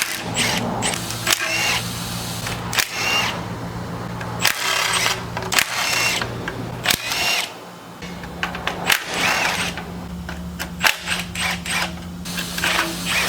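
Tools working on a car's underside: repeated metal clinks and knocks, with several short whirring runs of a power tool, over a steady low hum.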